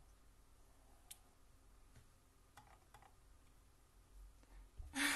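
Faint scattered light clicks over quiet room tone. Near the end comes a loud breathy vocal sound from a woman, just before she speaks.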